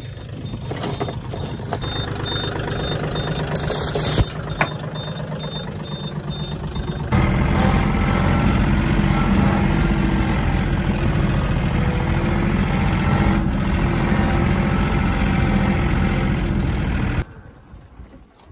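A vehicle engine idling, with a short clatter about four seconds in. From about seven seconds a louder, steady Tym compact tractor diesel engine is running, and it cuts off abruptly near the end.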